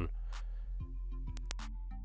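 Background music: steady sustained bass notes under a few short held melodic tones.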